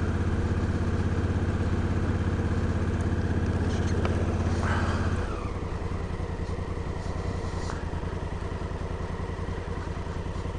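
Honda Africa Twin CRF1000L's parallel-twin engine running at low speed, then easing off to a quieter, lower idle about five seconds in, with a short squeal just before.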